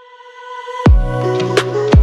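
Electronic background music: a sustained chord swells in, then a heavy bass kick with a falling pitch lands just under a second in, and a second kick lands near the end over steady synth chords.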